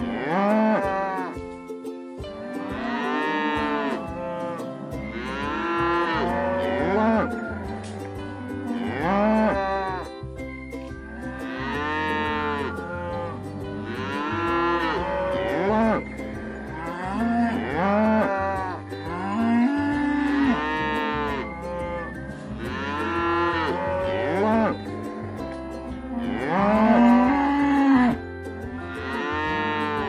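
Cattle mooing over and over, one long rising-and-falling call after another every second or two, several cows at different pitches often overlapping. A steady low hum sits underneath from about five seconds in.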